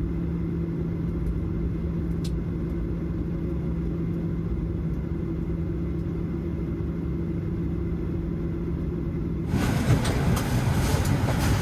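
Steady low drone of an airliner cabin, a Boeing 737-800, with a constant hum under low rumble. About nine and a half seconds in it cuts abruptly to louder, clattering noise.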